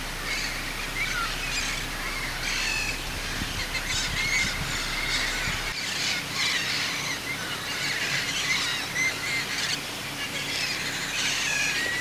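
A roosting flock of red-crowned parrots calling over one another in many short, overlapping calls. Among them are the juveniles' begging calls, a repeated 'caw caw caw' clucking.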